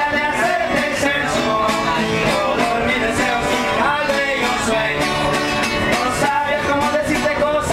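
Mexican singers performing a song, voices over strummed and plucked acoustic guitar.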